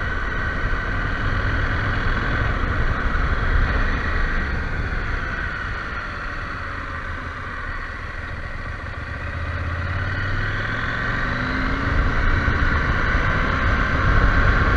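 KTM 790 Adventure's parallel-twin engine running under way. It eases off and gets quieter for a bend around the middle, then pulls harder and rises in pitch and loudness toward the end as the bike speeds up again.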